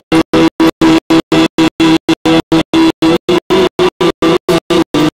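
Live stage band playing an instrumental passage with a held note, the sound chopped into a stutter as it cuts out completely about five or six times a second.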